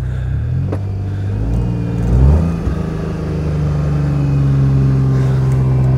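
John Deere Gator utility vehicle's engine revving up and then held at high revs as its slick 20-inch Z-rated street tires spin in snow without finding grip.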